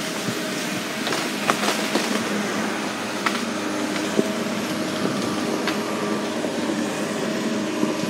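A vehicle's engine running steadily as it moves over rough woodland ground, with occasional sharp knocks and rattles from the bumps.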